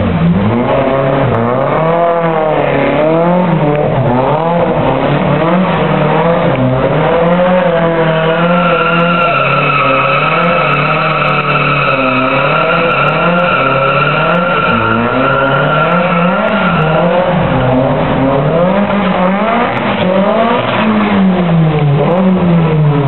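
Drift car's engine revving up and down hard as the car slides, with a steady tyre squeal from about eight seconds in until about seventeen seconds in, as the rear tyres spin on wet tarmac.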